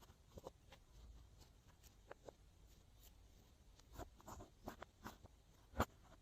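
Glossy slime being squeezed and poked by hand, giving faint, irregular sticky clicks and small pops, with one sharper pop near the end.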